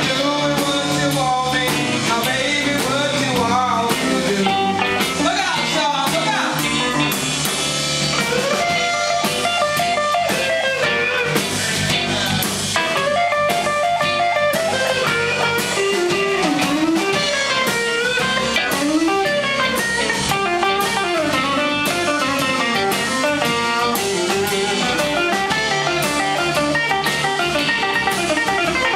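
Live blues-rock band playing: electric guitar to the fore with bending notes over bass and drums.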